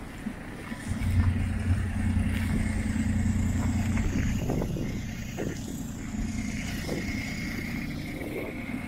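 Street traffic: a motor vehicle's engine running close by, a low steady rumble that sets in about a second in and eases after a few seconds.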